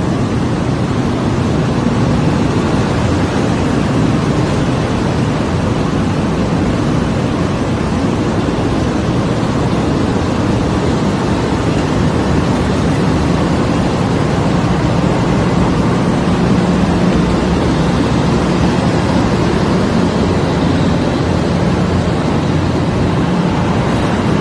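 Loud, steady din of fibre-processing machinery running on a filter-felt production line, the hoppers and carding machines of the process going without a break.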